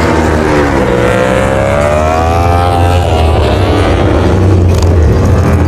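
Racing motorcycle engine sound effect revving, its pitch climbing about a second in, dropping after about three seconds, then climbing again near the end.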